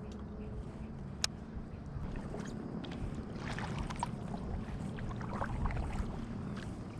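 Kayak paddling on calm water: the paddle dipping and splashing with water trickling off it, over a steady low rumble. A sharp click sounds about a second in, and the splashing is busiest in the middle.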